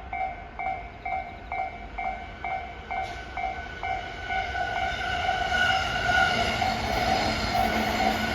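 Japanese level crossing alarm ringing about twice a second, while an approaching train, the JR East E257 series 2000 limited express, grows louder from about three seconds in.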